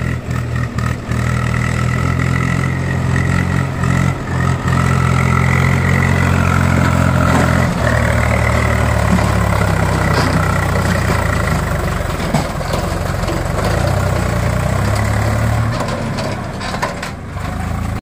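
Swaraj 744 XM tractor's three-cylinder diesel engine running under load as it pulls a fully loaded soil trolley over rough dirt. The engine note shifts about eight seconds in and drops away near the end.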